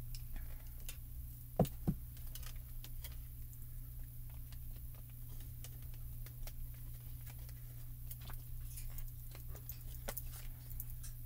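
A clear acrylic stamping block being handled on a craft desk: two sharp knocks close together about a second and a half in, then light scattered clicks and taps. A steady low hum runs underneath.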